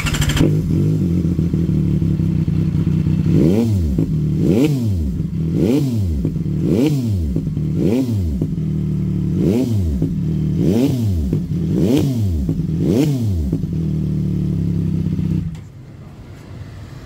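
CFMOTO 675 SR-R's three-cylinder engine, fitted with an aftermarket slip-on exhaust, starting up and idling. It is then blipped about nine times in quick succession, each rev rising and falling, and shuts off near the end.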